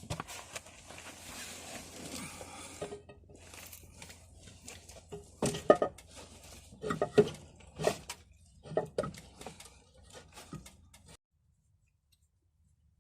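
Irregular knocks and clatter of objects being handled, with several louder short clanks that ring briefly in the middle; the sound cuts off suddenly near the end.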